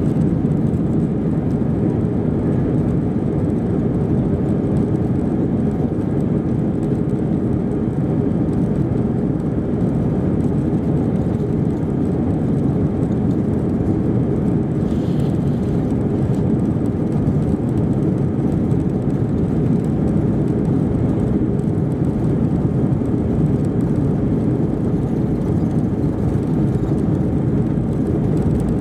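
Cabin noise inside an Airbus A320-232 taxiing: a steady low rumble from its IAE V2500 engines at low taxi power, with no spool-up.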